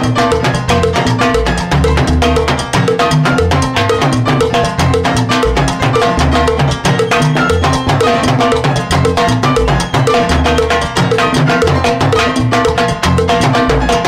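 Salsa timbales played hard with sticks: rapid, dense strokes on the metal-shelled drums and mounted cowbell in a timbal solo, over a live salsa band with a bass line underneath.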